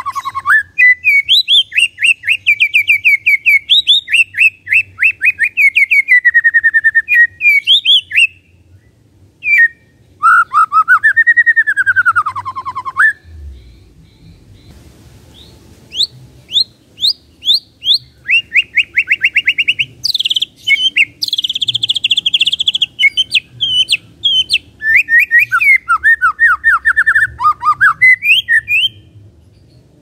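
White-rumped shama (murai batu) giving its kretekan: long bursts of rapid-fire chattering notes, some rising and falling in pitch, broken by short pauses about eight and thirteen seconds in. Bird keepers play this aggressive chatter to provoke other shamas into singing.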